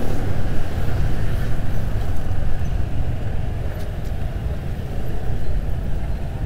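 Steady low rumble of wind and road noise on a moving motorbike's microphone, mixed with the engines of the scooters and traffic around it. The rumble eases a little toward the end as the bike slows into a traffic jam.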